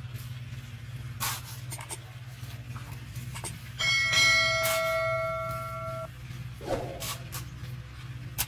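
A bell-like chime rings for about two seconds from about four seconds in and cuts off abruptly, like a notification-bell sound effect. Under it, a metal spade scrapes now and then in loose concrete mix, over a steady low hum.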